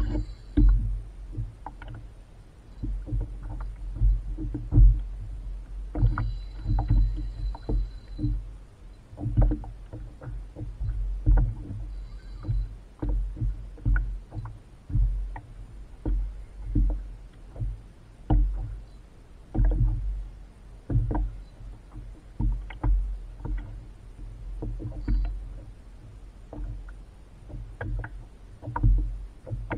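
Water slapping and sloshing against the hull of a Perception Pilot 12.0 kayak at sea, with a deep rumble that swells and fades and small knocks about once a second.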